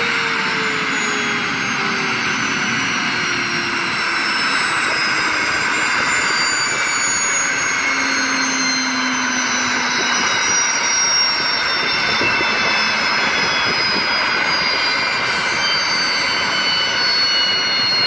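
Pirna GT028 gas turbine spooling down: a whine that falls slowly in pitch over a steady rush of air through the engine.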